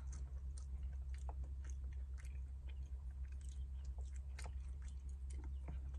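Close-up chewing and biting of a fried chicken wing: soft wet mouth clicks and small tearing ticks scattered through, over a steady low rumble.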